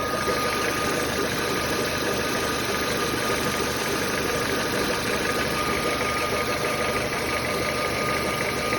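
Nissan Almera G15's 1.6-litre four-cylinder engine idling steadily with a rapid knock. The knock comes only once the engine has warmed up a little and is absent when it is fully cold.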